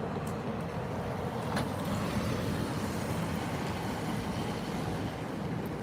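A vehicle running and moving, heard as steady engine and road noise with no sudden changes.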